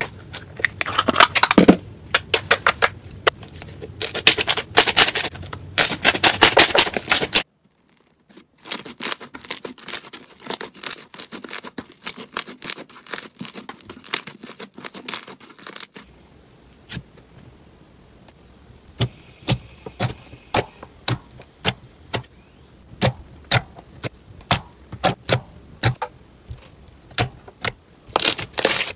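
Slime being pressed and squeezed by hand, giving dense crackling and clicking pops. The sound cuts out briefly about seven seconds in, returns as quieter crackling, and from about sixteen seconds on becomes sparser, sharper single clicks.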